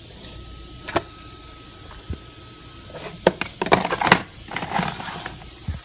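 Hard plastic storage cases for artificial nail tips being handled: a single sharp click about a second in, as a case lid shuts, then a busy run of plastic clicks and rattles over the second half.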